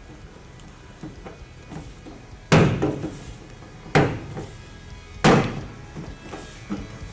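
Three hard thumps, about a second and a half apart: the clips of a 1967-72 GM truck's outer beltline weatherstrip being struck home into the door's holes to seat them.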